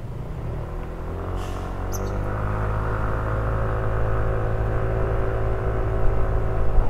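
Yamaha NMAX 155 scooter's engine accelerating under way, its whine climbing in pitch over the first couple of seconds and then holding steady, with road and wind noise growing louder.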